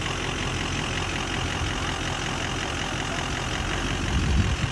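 Ford F-250 pickup's engine idling steadily as the truck creeps along slowly on grass, with a louder low rumble near the end.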